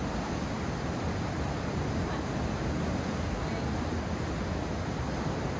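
Steady, unbroken rushing of a mountain river.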